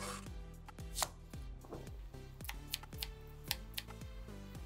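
Chef's knife chopping on a plastic cutting board, cutting garlic and red onion: about nine sharp, irregular strikes over background music.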